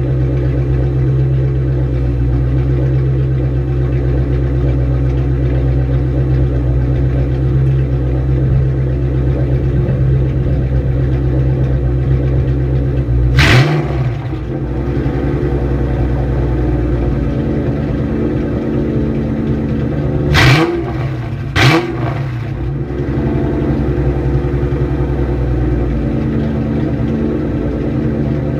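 Ford Mustang GT V8 idling through an SLP Loudmouth 1 cat-back exhaust, with a quick throttle blip about halfway through and two more about a second apart a few seconds later, each rising and dropping straight back to idle.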